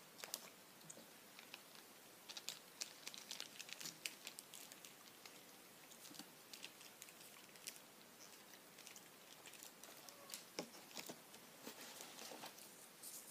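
Faint, scattered crinkles and ticks of a folded paper leaflet being opened and handled, in two clusters: one a couple of seconds in and one near the end.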